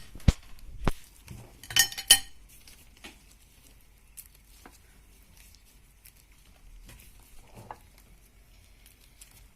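Kitchen utensils and dishes being handled: two sharp knocks early, a burst of ringing metallic clinks about two seconds in, then faint scattered taps and clicks.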